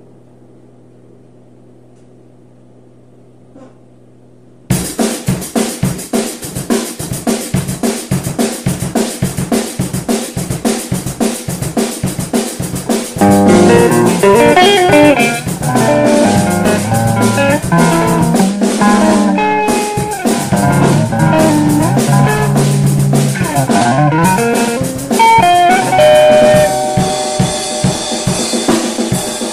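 Music: a faint low drone, then a drum kit suddenly comes in with a steady beat about five seconds in. About thirteen seconds in, bass and electric guitar join and the band plays much louder.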